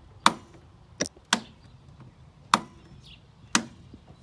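Five sharp mechanical clicks, irregularly spaced about a second apart, from the blade-engagement (PTO) knob of a 1996 John Deere riding mower being pulled out and pushed back in.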